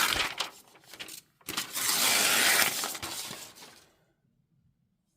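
Packaging being handled during an iPad Pro unboxing: a few sharp clicks and taps, then about two seconds of loud crinkly rustling as wrapping is pulled or peeled away.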